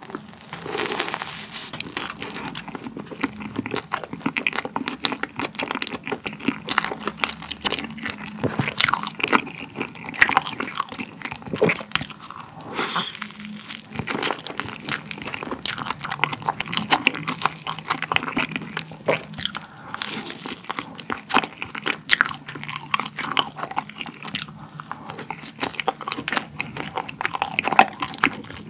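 A person biting into and chewing a soft bun filled with corn-flavoured whipped cream, close to the microphone. A bite comes at the start, then steady chewing with many small mouth clicks and smacks.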